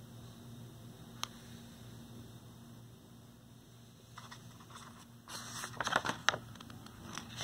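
Quiet room tone, then a page of a picture book being turned, with paper rustling and light clicks about halfway through.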